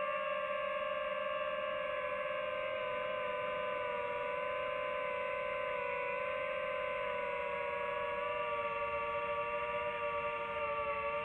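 FPV quadcopter's brushless motors and propellers whining at a steady cruise pitch that wavers slightly with throttle, then slides lower near the end as the throttle eases.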